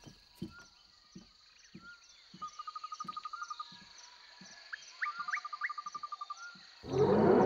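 Woodland ambience: a steady high insect drone, with two bouts of fast trilling calls, each led by a few rising chirps, over soft low thuds about every half second. Music swells in loudly just before the end.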